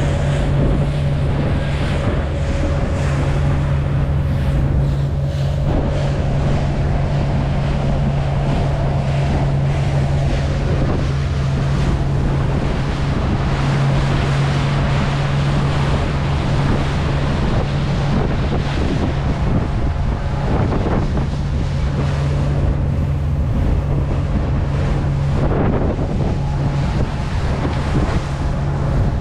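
Motorboat under way: the engine runs at a steady low hum, with wind noise on the microphone and the sound of water around the hull.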